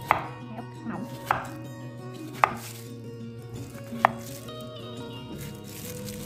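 Kitchen knife cutting bottle gourd on a cutting board: four separate sharp chops, a second or more apart.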